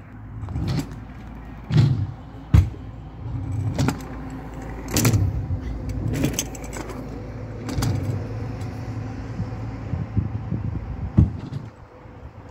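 Kick scooter wheels rumbling over skatepark ramps, with about nine sharp clacks and rattles from the scooter as it rides and lands. The rumble fades shortly before the end.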